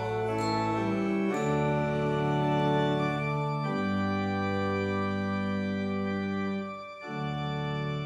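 Organ playing slow sustained chords, moving to a new chord every two to three seconds, with a short break in the sound near the end.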